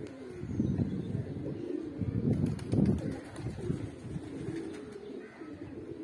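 A flock of Pakistani high flyer pigeons cooing, several low, throaty coos overlapping one after another, growing softer toward the end.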